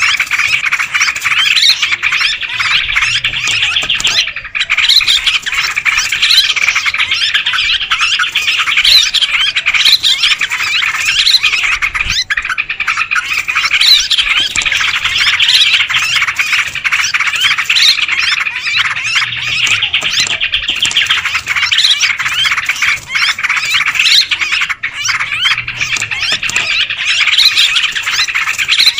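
A flock of yellow-vented bulbuls (trucukan) calling over one another without pause, a busy, noisy chorus of many birds. This is a lure call (pikat) used to draw wild bulbuls in for trapping.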